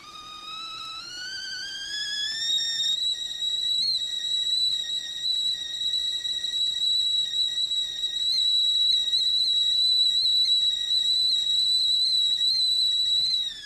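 Whistling kettle at the boil. The whistle rises in pitch over the first few seconds as the steam builds, then holds a steady, loud, high note. Right at the end it drops in pitch and cuts off.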